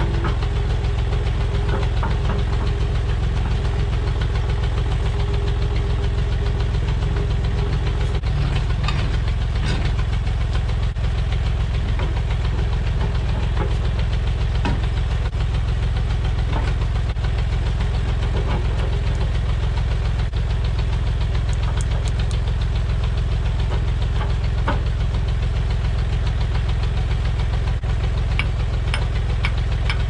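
Old Massey Ferguson backhoe's engine running steadily with a knocking clatter, with occasional metallic clanks scattered through.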